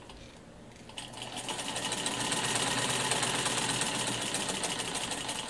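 Vintage black Singer sewing machine stitching a hem, picking up about a second in and then running at a steady, rapid stitching rhythm.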